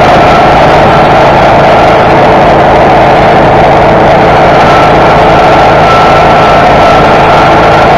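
Grillo Climber mower-mulcher's engine running steadily under load while its blades cut through tall dry grass and weeds. The sound is loud and even throughout, with a faint steady whine above the engine noise.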